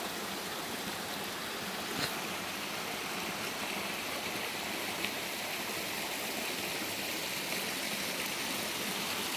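Steady rush of a stream running among rocks and boulders, with a brief tick about two seconds in.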